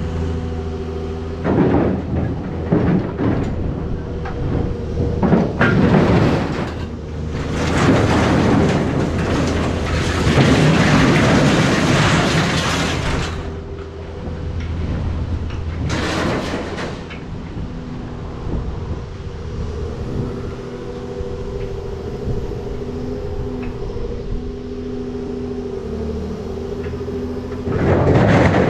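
An engine running steadily, with several louder stretches of noise over it, the longest lasting about six seconds in the middle.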